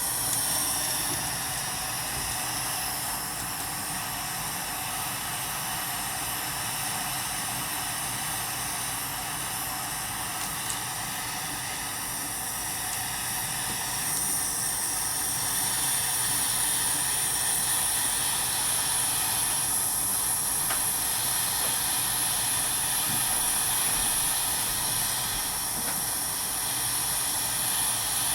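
Gas soldering torch flame hissing steadily while heating a bezel joint until the solder melts, a little louder from about halfway through.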